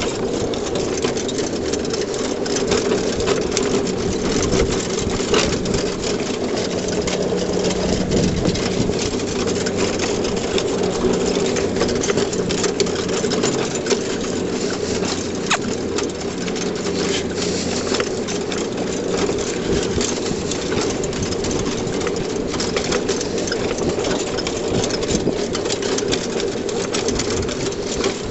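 Pony-drawn cart rolling over grass: a steady rumble and rattle from its wheels and metal frame, with many small clicks and knocks.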